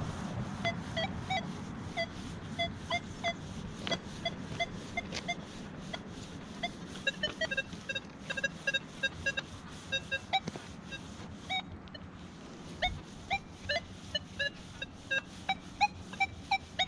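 Nokta Legend metal detector giving short, quick beeps at several different pitches, low and high, in clusters as its coil sweeps the ground. It is sounding off on scattered junk targets such as foil in trashy soil.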